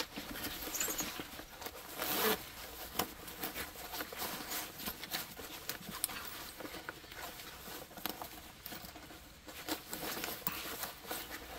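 Zipper running and nylon pack fabric rustling and clicking irregularly as a zip-on side sustainment pouch is unzipped and pulled off a military rucksack.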